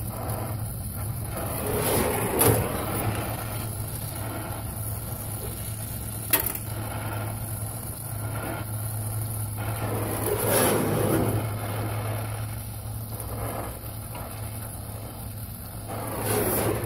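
Brazing torch flame hissing at a copper refrigerant line joint on a newly fitted compressor, swelling louder three times, over a steady low hum. There are two sharp clicks, about two and a half seconds in and again about six seconds in.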